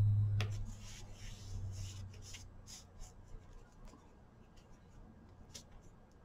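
Fingers pressing and rubbing a glued paper panel down onto a card: faint, scattered paper rustles and light ticks. A low hum fades out in the first second.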